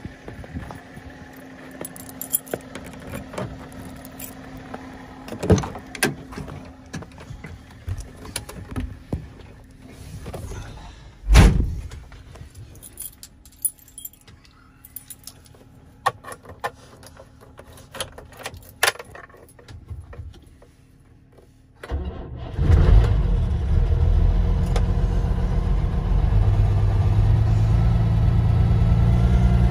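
Keys and switches clicking and rattling in a truck cab, with a heavy thump about eleven seconds in as the cab door shuts. About 22 seconds in, the 1989 Ford Cargo's diesel engine cranks briefly and fires right up on a cold start at 0 °C, then runs at a steady idle.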